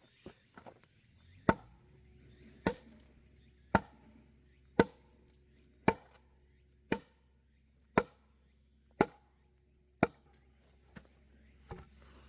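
Firewood being chopped or split with sharp, evenly spaced blows, about one a second: nine strong strikes, then two lighter ones near the end.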